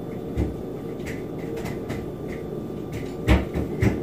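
Scattered light knocks and taps of hands and an icing bag working a cookie on a stone countertop, the loudest a little after three seconds in, over a steady low household hum.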